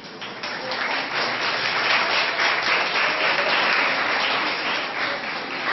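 An audience applauding, many hands clapping together in a dense patter.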